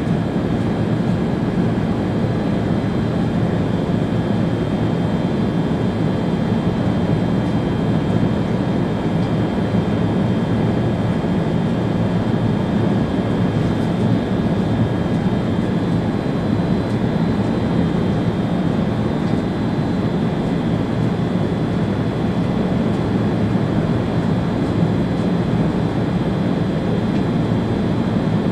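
ÖBB Railjet high-speed train running along the line, heard from the driver's cab: a steady, even rumble with a faint high whine held throughout.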